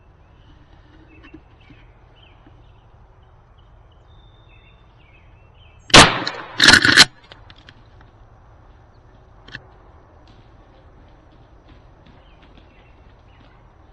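Wild turkey tom gobbling, loud, in two quick bursts about six seconds in, the second a rapid rattling call. Faint songbird chirps can be heard around it.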